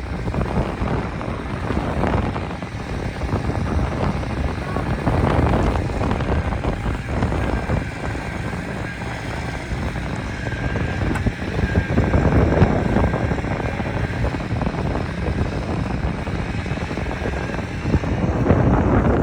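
Gusty blizzard wind buffeting the microphone, with the steady running of heavy truck engines underneath.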